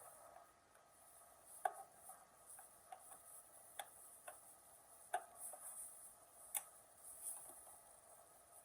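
Light, irregular clicks and taps of plastic as a truck's tail light assembly is handled and fitted back onto its mounting points.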